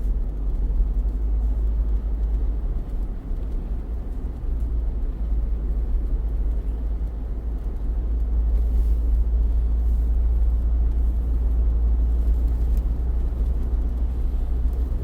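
Steady low road and engine rumble of a moving car, heard from inside its cabin, getting a little louder about halfway through.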